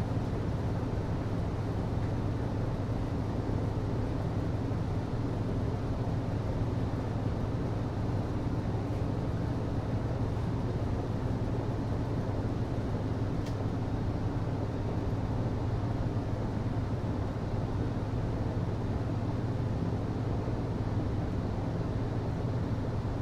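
HVAC system running steadily: a constant low hum under an even rush of air.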